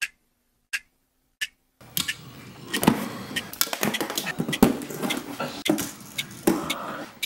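A clock ticking, a sharp tick about every 0.7 s, three times. Then, about two seconds in, a fingerboard being ridden on a wooden ledge: its small wheels rolling, with many quick clicks and knocks of the board and trucks against the wood.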